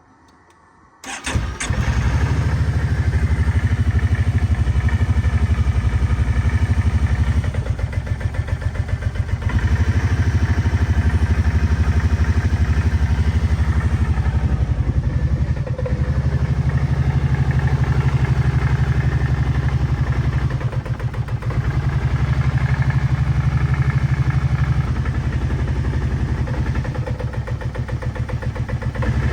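Kawasaki Brute Force 750 ATV's V-twin engine starting about a second in, then idling with its level sagging a few times. It is a rough idle that the owner suspects comes from a faulty idle air control valve.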